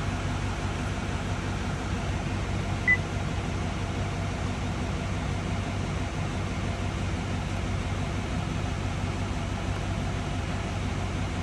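L5P Duramax 6.6-litre V8 turbodiesel idling steadily, just restarted after an oil and fuel filter change with oil pressure up. A single short electronic beep sounds about three seconds in.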